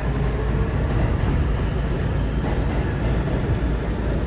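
Steady low rumble of an R211A subway car running between stations, heard from inside the car.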